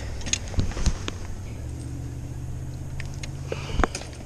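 A few light knocks and rustles from hands handling a freshly landed pike in a boat, over a low steady hum. The knocks fall about half a second and a second in, and again near the end.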